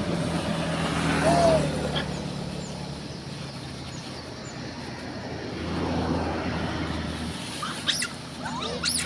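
Steady low hum of a vehicle engine running, with a few short high-pitched monkey squeaks near the end.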